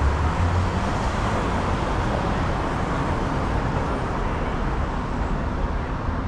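Steady city street traffic noise with a constant low rumble.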